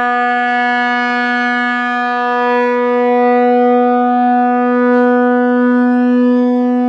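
Leslie A-125 single-chime locomotive air horn blowing one long, steady note on compressed air, rich in overtones, with the horn's bell facing away.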